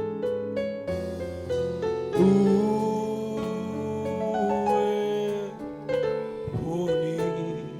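Gospel worship music played on an electric keyboard, held chords moving from one to the next, with a voice singing along.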